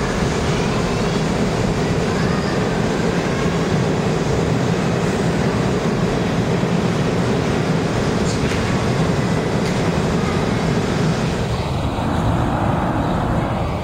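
New York City Subway stainless-steel train running along the platform of an underground station: a loud, steady rumble and rail noise of the cars moving past.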